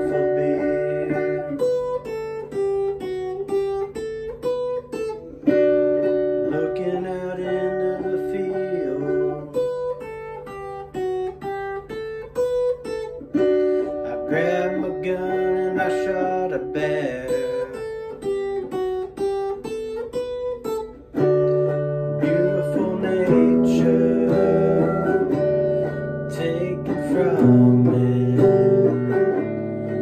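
Single-cutaway electric guitar playing an instrumental passage: a picked melody of single notes over held chords, changing to fuller, lower chords about two-thirds of the way through.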